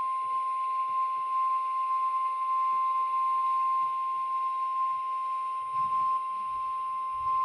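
NOAA Weather Radio warning alarm tone: a single steady, unbroken tone of about 1050 Hz, heard through the receiver's background hiss. The tone signals that a warning message follows, here a new severe thunderstorm warning.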